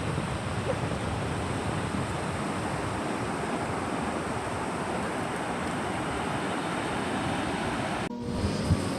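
Steady rushing noise, broken by a sudden cut about eight seconds in, after which a different, fainter sound with a few steady tones takes over.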